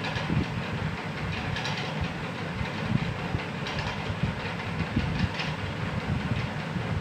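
Steady low rumble with irregular clacks and knocks and short hissy bursts every couple of seconds.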